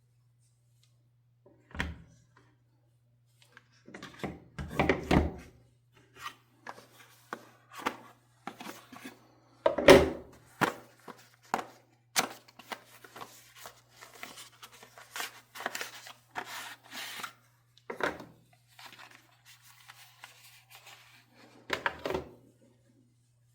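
Hands handling a boxed smartwatch and its packaging: scattered knocks and thuds with rustling, the loudest thud about ten seconds in. A faint steady electrical hum runs underneath.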